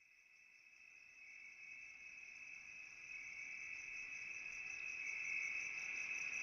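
Crickets chirping in a steady, high, fast-pulsing trill that fades in from near silence and grows louder.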